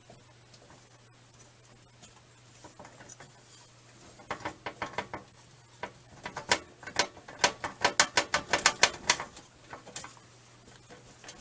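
Hand ratchet clicking in quick strokes: a short run about four seconds in, then a longer, louder run of rapid clicks from about six and a half to nine and a half seconds.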